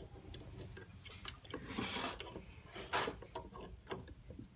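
Light plastic clicks and a brief scrape as the plastic cover strip over the printhead plugs of a Citizen CLE-321 label printer is pressed back into place, with a sharper click about three seconds in.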